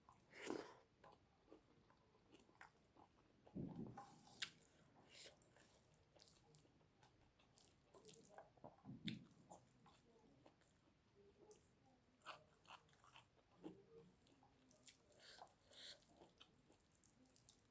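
Faint chewing and mouth sounds of a person eating, with many small scattered clicks and a few louder soft thuds.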